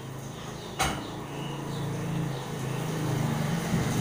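Small motor scooter riding past close by on a wet lane, its engine humming low and growing louder, over a steady hiss of rain. A single sharp knock about a second in.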